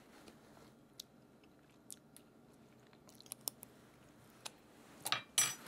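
Faint mouth clicks and lip smacks of a person tasting hot chocolate frosting, with two louder smacks about five seconds in.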